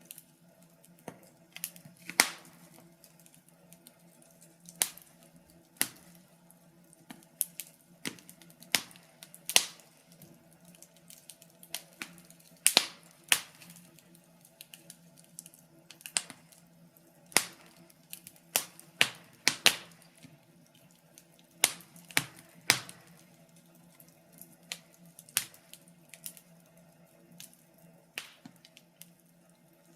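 Fire crackling in a fireplace: irregular sharp pops and snaps, a few every couple of seconds, over a faint steady hum.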